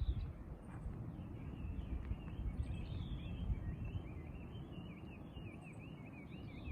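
A small bird singing a fast warbling run of high chirps, starting about a second and a half in, over a low steady outdoor rumble.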